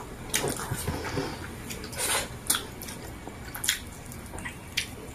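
Close-up wet eating sounds: lip smacks, chewing and finger-sucking as fried fish is eaten by hand, with scattered sharp mouth clicks at an uneven pace.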